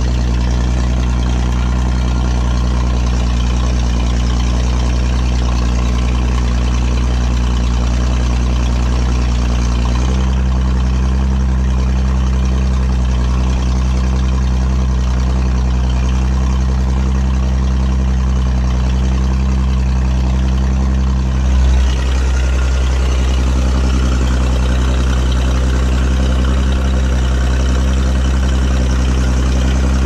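Dynahoe backhoe engine running steadily while the loader hydraulics are worked. About ten seconds in, the engine note steps to a different pitch under the changing load, and a brief low thump comes a little after twenty seconds.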